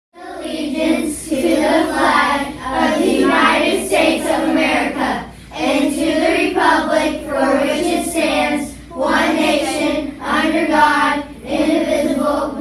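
A class of children's voices in unison, in phrases with short pauses between them.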